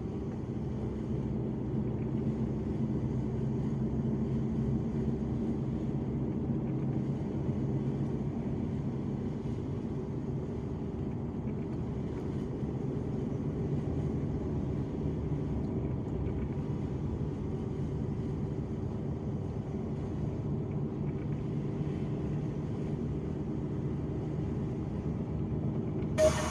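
Truck engine running steadily while driving, a low drone with road and tyre noise.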